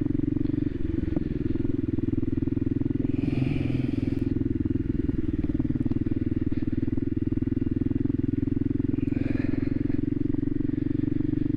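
Voge 300 Rally's single-cylinder engine running at a steady, even pace under way, with no change in revs. Two brief hissing bursts come over it, about three seconds in and again near the end.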